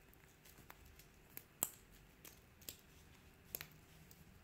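Near silence: faint room tone with about four small, sharp clicks, the loudest about a second and a half in.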